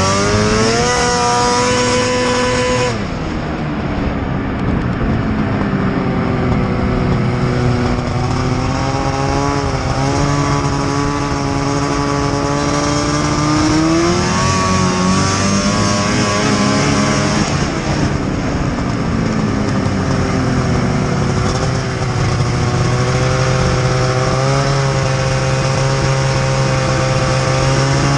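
Snowmobile engine running under throttle during a ride. Its pitch climbs and drops several times as the throttle is opened and eased off: a drop about three seconds in, a long climb, another fall in the middle, and a climb again near the end.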